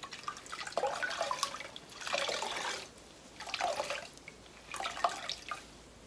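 Wet handspun wool yarn squeezed out by gloved hands over a stainless steel pot, the mordant liquid running and dripping back into the pot in four bursts, one per squeeze.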